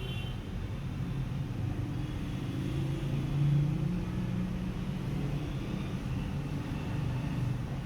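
Car engine idling steadily, a low hum that swells briefly about three and a half seconds in.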